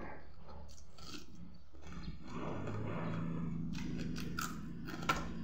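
Mouth sounds of someone eating with her hand: chewing and lip smacking, with a few sharp clicks. A steady low hum runs underneath.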